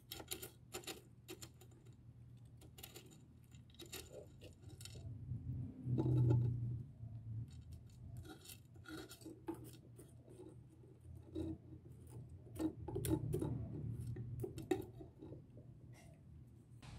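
Granular aquarium soil being added by hand into a small glass tank: irregular light clicks and rattles of the pellets against each other and the glass, busiest about six seconds in and again near the end. A steady low hum runs underneath.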